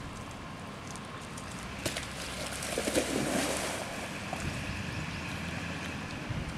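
Golden retriever splashing into lake water and swimming out to a floating toy, with the loudest splashing about two to three seconds in. Steady wind noise on the microphone throughout.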